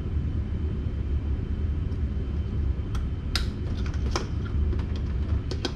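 Plastic spark plug wire boots and distributor cap clicking and snapping as the wires are worked onto the terminals of a new MSD distributor cap, a few sharp clicks from about three seconds in. A steady low rumble runs underneath.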